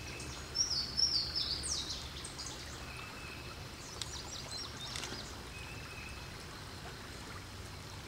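Small songbird singing loudly beside a flowing creek: a few high clear notes that break into a quick run of sharply falling slurred notes about half a second in, then a second shorter burst of falling notes around four seconds in. The creek's steady rush of water runs underneath.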